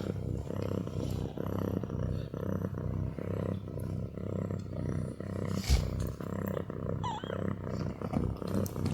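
Cat purring steadily in a pulsing low rumble, with one sharp thump a little past halfway.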